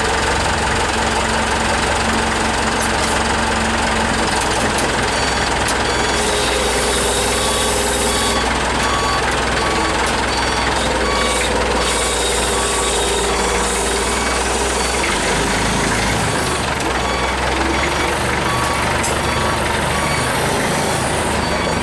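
Forklift engine running steadily under a working load, with a faint beep repeating at an even pace through much of it.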